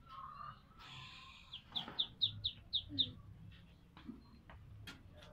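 Ducklings two days old peeping: a quick run of about seven short, high, falling peeps, then a few single peeps. A short hiss-like noise comes just before the run.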